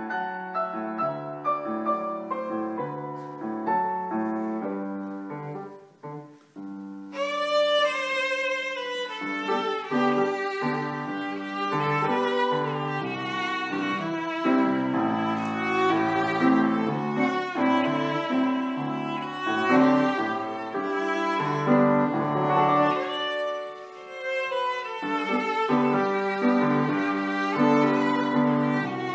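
Background music: a slow piano and string passage, with a violin line coming in about seven seconds in.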